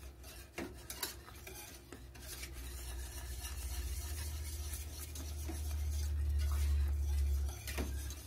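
Wire whisk beating a thick, lumpy béchamel sauce in a stainless-steel skillet: the wires scrape and clink against the pan. A few sharp clicks come in the first two seconds, and the whisking grows louder in the second half. This is the whisking that keeps a thickened roux-based sauce free of lumps.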